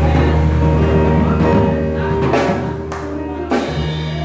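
Live band music: held chords over a sustained bass note, with a few drum or cymbal hits in the second half.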